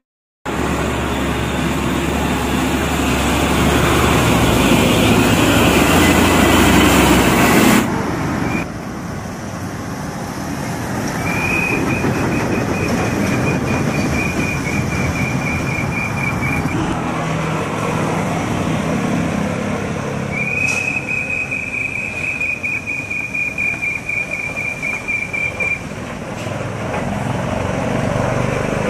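Mitsubishi Fuso diesel trucks passing close by, with engine rumble and road noise; the sound changes abruptly at a cut about 8 s in. Later, a high thin squeal rings out twice, each time for about five seconds and falling slightly in pitch, over the running trucks.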